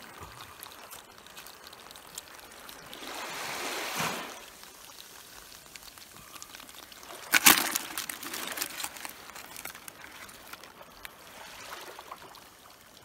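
Water trickling and sloshing, swelling twice, with one sudden loud splash about seven seconds in, followed by a second or so of crackling drips and clicks.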